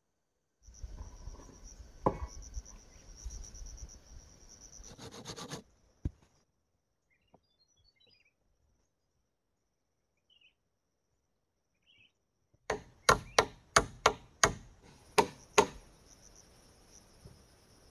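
A hammer strikes a nail into a wooden post about nine times in quick succession, about three blows a second. A steady high insect drone runs behind it. Earlier there are a few seconds of rustling and a couple of knocks, then several seconds of near quiet.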